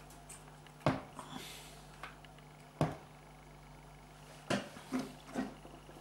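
Plastic and metal parts of a reverse light switch assembly clicking and knocking as they are handled and fitted together by hand, about seven sharp clicks in all. The loudest come about one and three seconds in, with a quick run of three more near the end, over a low steady hum.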